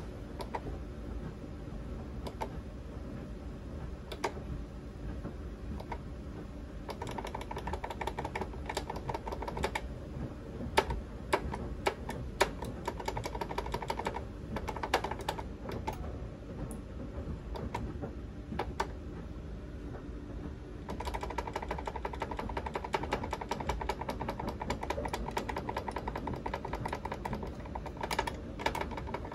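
Sonoff 4CH Rev2 smart switch clicking repeatedly and irregularly, its channel relays and push buttons, from a unit that is hanging. A faint buzz comes in twice and holds for several seconds each time.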